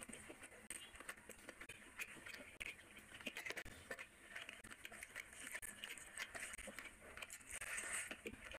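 Eating sounds: chewing and wet mouth clicks, and fingers squishing and scraping as they mix rice and curry on a plate, heard as many small irregular clicks and squelches.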